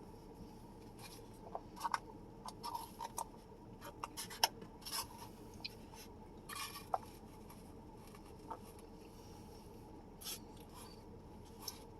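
A person chewing food close to the microphone: irregular small mouth clicks and smacks, busiest in the first half and sparser later.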